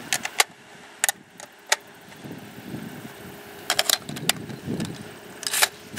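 Rifle cartridges clicking one by one as they are pressed into an AR-15 magazine, then sharper metallic clicks and clacks as the rifle is handled at the magazine well near the end.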